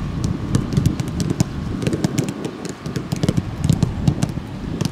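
Rapid, irregular clicks and knocks, several a second, over a rough low rumble.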